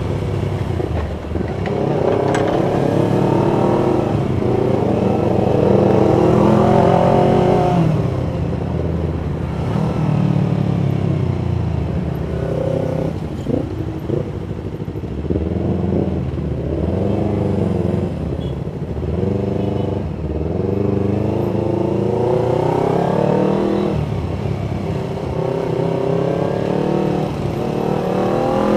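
Yamaha MT25's 250 cc parallel-twin engine accelerating through slow city traffic, its revs rising in repeated pulls and dropping back at each gear change or roll-off, several times over, with a steady low rumble beneath.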